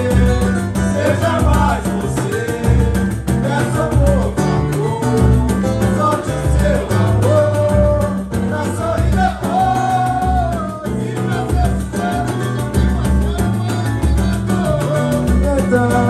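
Live samba (pagode) band playing: deep hand-drum beats, pandeiro jingles and a cavaquinho, with voices singing the melody over the rhythm.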